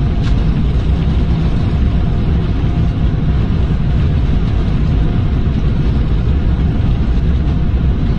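Boeing 777 on its landing rollout, heard in the cockpit: a loud, steady low rumble of engines and wheels on the runway.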